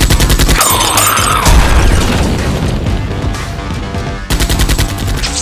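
Background action music layered with sound-effect bursts of rapid gunfire, once at the start and again near the end, and an explosion boom.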